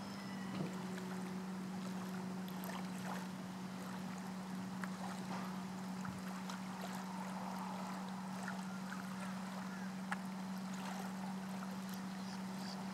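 A steady low hum over a faint even background wash, with a few faint ticks scattered through it.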